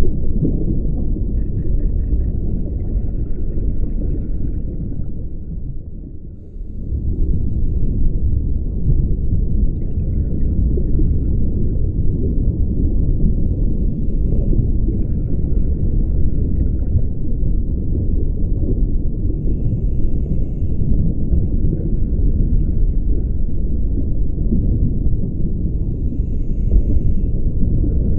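Underwater audio from a scuba diver's camera: a steady low rumble of water noise, with the diver's regulator breathing, faint hissing inhalations every few seconds and bubbling exhalations. The rumble drops briefly about six seconds in.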